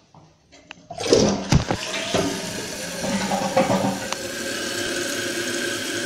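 A 1.28-gallon-per-flush Kohler Wellworth toilet is flushed with its tank lid off. About a second in, a clunk and a sudden rush of water come as the tank empties. A steady rush of water follows.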